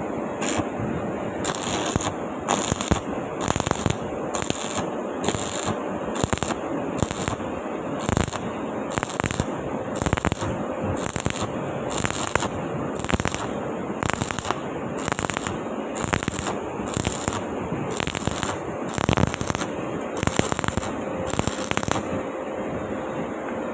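Electric arc welding on a pipe: a steady, dense crackle of the arc, pulsing in a regular rhythm about three times every two seconds as the electrode is moved. The pulsing stops near the end.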